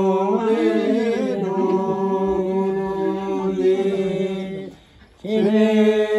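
A voice chanting in long phrases held on a steady pitch, with slight wavers in the line. It breaks off briefly about five seconds in, then begins the next phrase.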